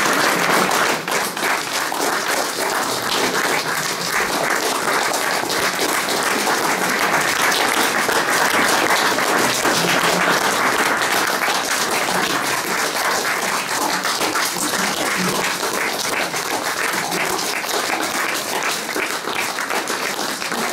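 Audience applauding: steady, dense clapping that goes on without a break.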